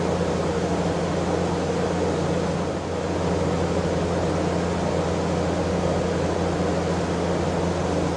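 Steady drone of a ventilation fan running, with a constant low hum.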